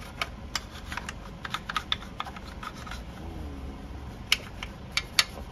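Scattered sharp clicks and light taps at an irregular pace as hands work a tool over a bicycle's crank and chain, with two louder clicks near the end.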